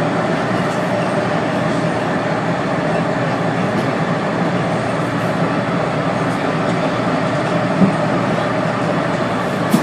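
Inside a WMATA CAF 5000-series Metrorail car running at speed through a tunnel: a steady, loud rumble of wheels on rail and running gear, with a faint steady tone. Two short knocks come late on.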